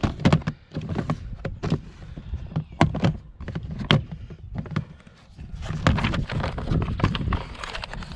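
Clear plastic storage case being handled and opened: a run of irregular sharp clicks and knocks from its snap latches and lid, with denser rustling and clatter in the last few seconds.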